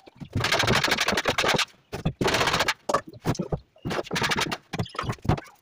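Tool work on wood: two bursts of fast rattling, scraping strokes, then a run of separate knocks.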